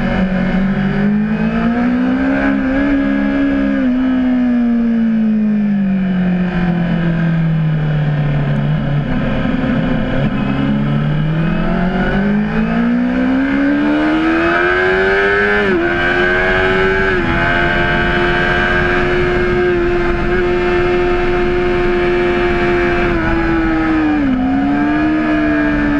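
Honda CBR600RR inline-four engine at racing revs on track. Its pitch rises, falls low and climbs again over the first half, then climbs high and holds steady, with short dips in pitch about halfway and near the end.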